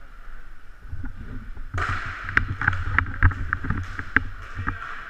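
Sharp clacks of hockey sticks striking a puck and the rink floor during play, about eight of them from about two seconds in, over a low rumble and a steady hum.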